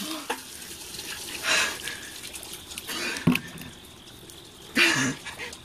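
Ice water trickling and dripping off a soaked person just after the bucket is emptied over him, with short breathy gasps and cries from the cold, the loudest about a second and a half and five seconds in. A sharp click about three seconds in.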